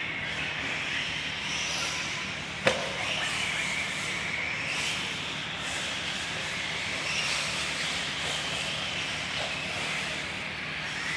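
Radio-controlled off-road cars running laps on a clay track, their motors whining with pitch rising and falling as they speed up and slow through the corners. A single sharp click about two and a half seconds in.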